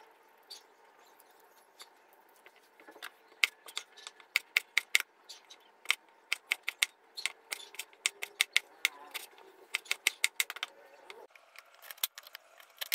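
A kitchen knife chopping red bell pepper into squares on a bamboo cutting board: quick sharp knocks of the blade on the board, about four a second, starting about three seconds in and stopping near the end.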